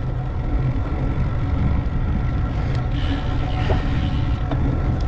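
Steady low rumble of wind buffeting and road noise while moving, with a few faint clicks.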